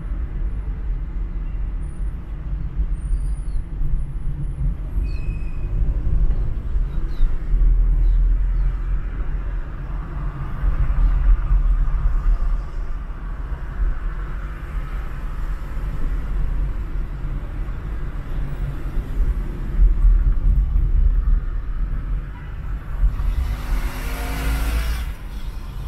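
Steady low rumble of a car driving through city traffic: road and engine noise. A loud hiss lasts about two seconds near the end.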